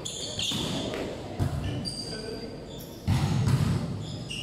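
Volleyball being struck during a rally on an indoor court: several sharp hits on the ball, the loudest about three seconds in, echoing in the large hall.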